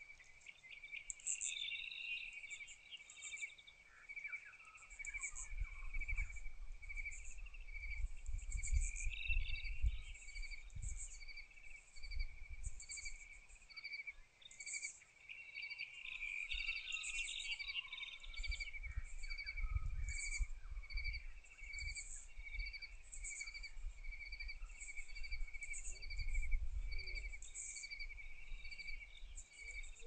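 Insects chirping in a steady, evenly spaced rhythm, with a few brief bird calls near the start and around the middle. Wind rumbles on the microphone at times from about five seconds in.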